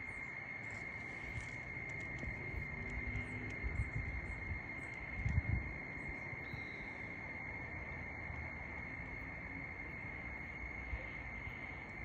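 Crickets at dusk, one steady unbroken high trill, with a couple of low muffled bumps about four and five and a half seconds in.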